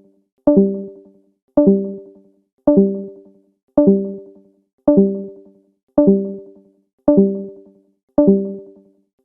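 Discord's leave notification sound: a short synthesized chime with a sharp start and a quick fade, repeated about once a second, eight times.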